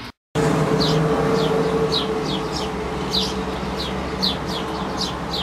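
A bird chirping over and over, short high falling notes about twice a second, over a loud steady hum.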